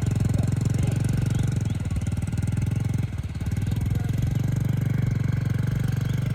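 An engine running steadily with a rapid, even pulse; it dips briefly about three seconds in.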